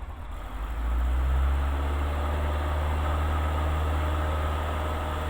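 Van's RV-7 light aircraft's piston engine and propeller going to full power about a second in, then running steadily at takeoff power for a touch-and-go after a power-off landing.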